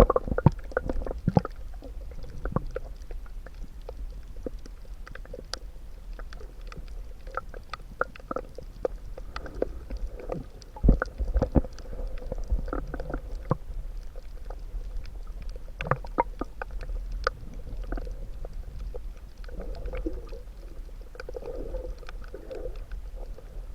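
Underwater ambience: irregular sharp clicks and crackles over a steady low rumble, with a few muffled bubbling gurgles near the end.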